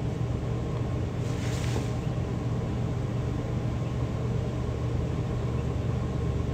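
Steady low hum of background room noise, with a brief soft hiss about a second in.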